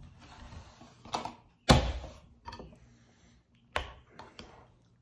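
A metal spoon clinking and scraping against a bowl of chili, in short irregular clicks, with one loud knock about two seconds in.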